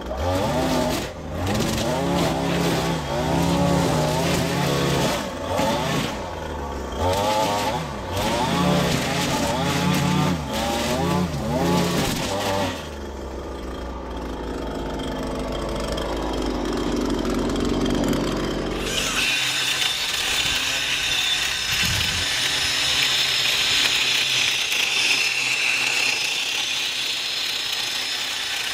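Lawn-care power equipment running: an engine revving up and down for the first twelve seconds or so, then a lower steady drone, and from about two-thirds of the way in a steady high-pitched whirring hiss.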